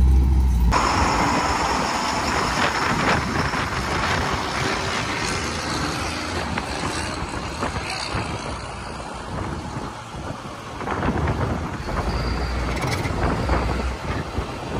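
Truck engines running under load as a chain of vehicles tows a stuck fire truck up a hill, with a steady, noisy drone and a deeper rumble swelling near the end.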